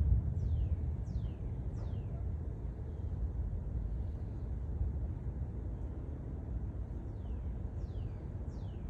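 Steady low rumble of outdoor storm ambience. A bird calls twice in a run of three downward-slurred whistles about half a second apart, once near the start and again near the end.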